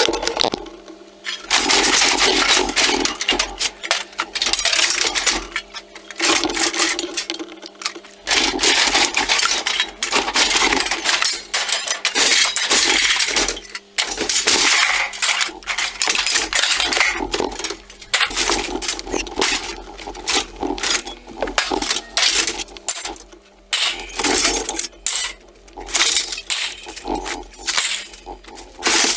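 Scrap steel, sheet metal and ductwork being thrown off a trailer onto a scrap pile: repeated clattering, clanging metal crashes with short gaps between throws. A steady low hum runs underneath.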